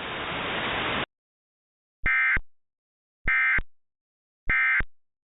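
A steady hiss cuts off about a second in. Then come three short, identical bursts of digital data tones, about a second apart: the Emergency Alert System end-of-message (EOM) code, sent three times to close the alert.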